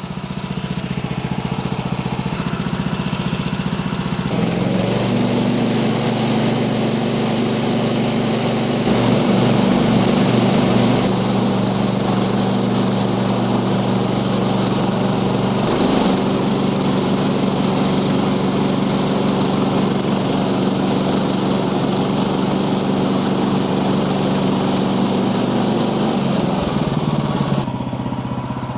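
Small petrol engine of a portable bandsaw sawmill running steadily. About four seconds in the pitch drops and the sound thickens as the blade takes a load cutting through a log, until it eases back near the end.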